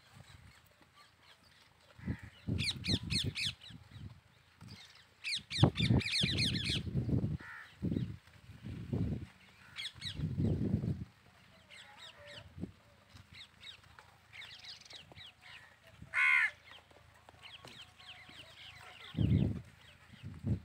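Goats bleating in a grazing herd: several quavering calls, mostly in the first half, one more near the end, and a short higher-pitched call a little after the middle.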